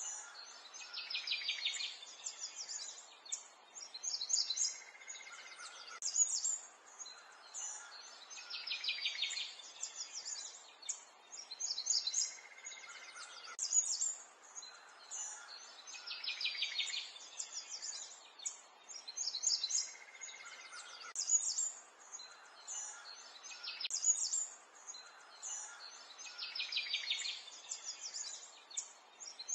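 Birds chirping and singing in quick high trills and calls. The same sequence of calls comes round again about every eight seconds.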